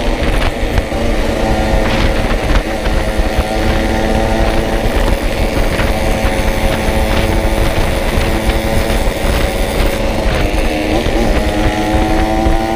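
Yamaha RX-King's single-cylinder two-stroke engine running at a steady pitch while the bike is ridden along. About ten seconds in, the pitch dips briefly and then climbs again.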